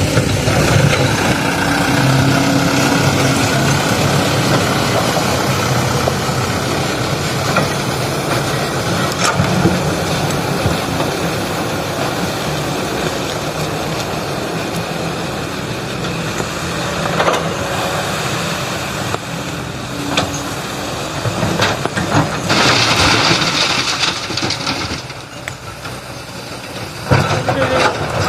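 Heavy diesel machinery running steadily, a dump truck and excavator working, with scattered knocks. About three-quarters of the way through, a loud hiss lasts two or three seconds.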